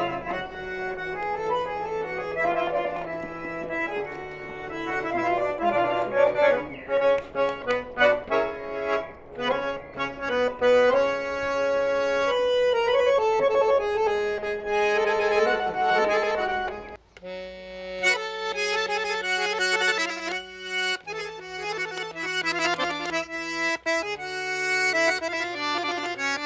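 Accordion playing a tune: a running melody over held low bass notes, with a brief break about 17 seconds in before the playing picks up again.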